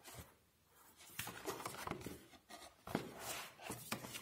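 Paper rustling from a thick softcover book being opened and handled: several soft rustles and brushes of its pages and flapped cover.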